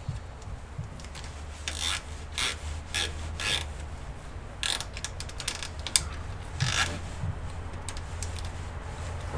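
Cables being handled and pulled through a metal PC case: a series of short scraping, rubbing strokes, mostly in the first seven seconds, with a few sharp clicks.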